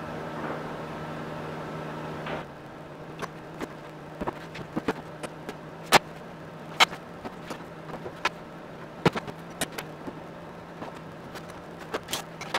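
Tubular engine mount and nose gear assembly clinking and knocking against the firewall bolts as it is fitted onto them: an uneven string of sharp metallic knocks and clicks, the loudest about six and seven seconds in. A steady hum runs under the first two seconds and stops abruptly.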